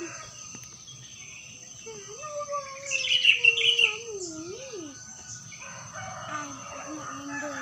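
Small birds chirping, with a brief burst of bright chirps about three seconds in, over a steady high whine. A long, wavering lower call rises and falls beneath the chirps.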